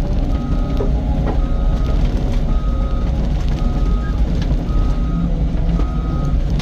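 Cat 255 skid steer's backup alarm beeping about once a second while the machine reverses, over the steady running of its diesel engine.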